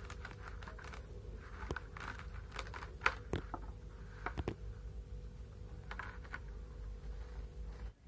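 Kitchen knife cutting through crisp water spinach (kangkung) stems over a plastic bowl: an irregular run of crunches and snaps, with a few sharper cracks around three to four and a half seconds in.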